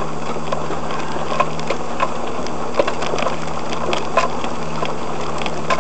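Four-wheel drive crawling up a rough, rocky bush track, heard from inside the cabin: a steady engine drone with scattered short knocks and rattles as the vehicle goes over the bumps.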